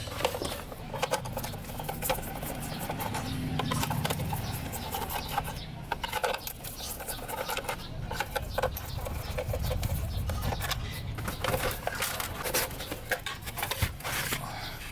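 Hand work on small parts: irregular clicks, taps and scraping over a low hum.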